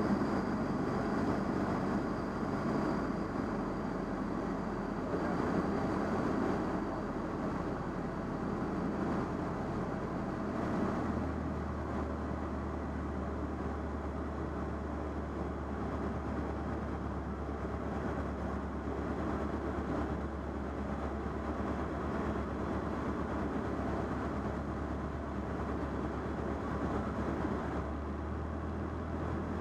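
Light aircraft's piston engine and propeller running steadily in cruise, heard from inside the cockpit of a Van's RV-7A, with a steady rush of air noise. The low engine note changes about eleven seconds in.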